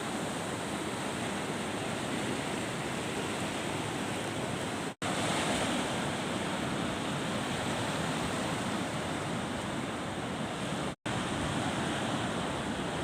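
Sea waves washing on the shore with wind, a steady rushing noise. It breaks off for an instant twice, about five and eleven seconds in.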